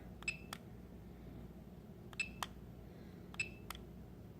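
DJI Mavic remote controller's video record button being pressed and released three times, each time a pair of small clicks about a quarter second apart, the first with a brief high ring. The button sits lower than the photo button and sometimes sticks without starting recording.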